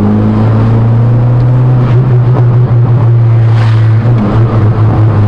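Hyundai Accent's engine through a straight-piped exhaust with the resonator removed, heard from inside the cabin while driving. The engine note drops right at the start as the revs fall, then holds steady.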